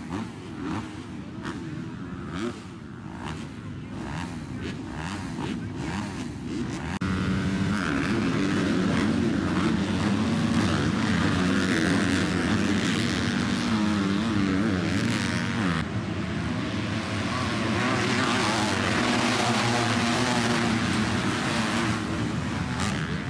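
Many motocross bike engines running at once, with a sudden jump in loudness about seven seconds in as the pack accelerates hard off the start. The engines stay loud after that, their pitch rising and falling as the riders shift and work the throttle.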